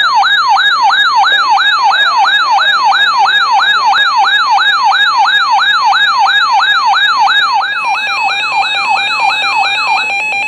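Electronic yelp siren, a falling sweep repeated about three times a second, fading out near the end. A second buzzing electronic tone comes in about eight seconds in.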